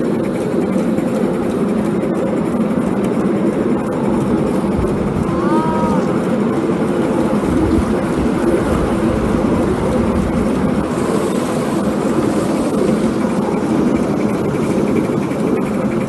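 Live-steam 5-inch gauge J94 Austerity 0-6-0 model locomotive running steadily under load, a continuous mix of engine and track noise. A brief rising-and-falling tone comes about five and a half seconds in.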